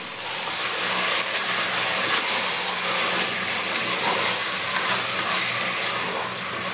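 Raw mutton pieces sizzling loudly in hot oil in an aluminium pressure cooker as they are stirred with a wooden spatula. The steady hiss jumps up sharply at the start and is the water in the freshly washed meat frying off.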